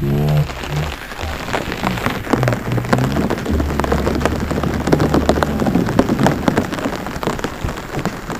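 Rain pattering and dripping into a flooded rice paddy, as many small irregular drops, with a low rumble underneath. A brief rising pitched sound comes right at the start.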